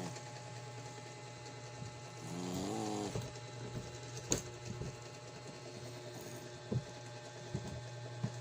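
Small Shih Tzu–Pekingese cross dog snoring: one drawn-out pitched snore about two and a half seconds in, over a steady low hum. A few sharp clicks come in the second half.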